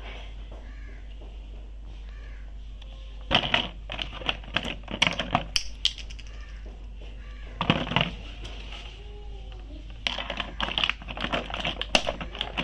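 Clear plastic blister tray crackling and clicking as action figures are pulled out of it and handled, in three bursts of rapid sharp crackles: about three seconds in, around eight seconds, and again from about ten seconds on.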